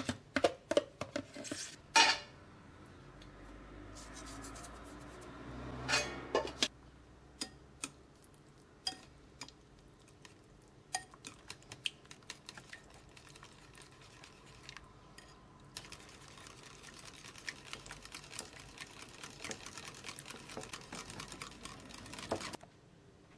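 A spoon clinks against a ceramic bowl a few times at the start. Then a wire whisk beats egg and yogurt in the bowl, with scattered ticks at first and a fast, steady ticking in the last several seconds before it stops.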